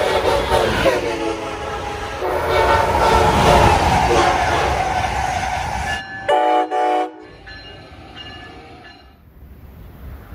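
Amtrak Acela trains passing at speed and sounding multi-tone air horns over the rumble of the train, with one horn chord falling in pitch as a train goes by. About six seconds in, a loud horn chord sounds in three short blasts, then fades away.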